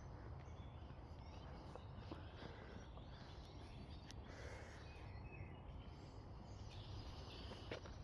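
Faint outdoor ambience: a steady low rumble with a few distant bird calls, and a couple of light clicks near the end.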